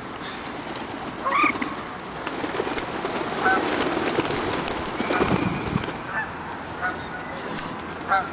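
A flock of birds calling with short honking calls, several times over, while they are fed, with a louder stretch of noise through the middle.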